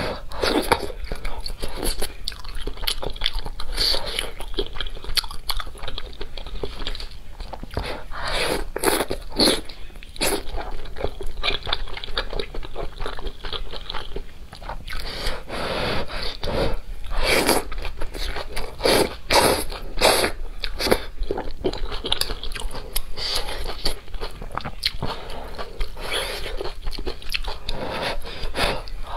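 Close-miked eating sounds of a person biting and chewing spicy malatang hot pot (fish balls, noodles, cabbage), with irregular wet mouth clicks and smacks.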